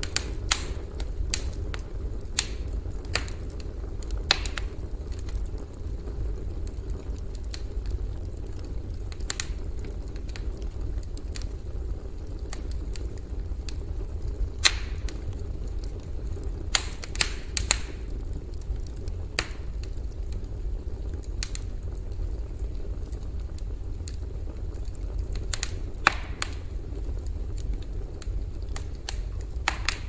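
Campfire crackling: irregular sharp pops and snaps of burning wood, a few each second and some louder than others, over a steady low rumble.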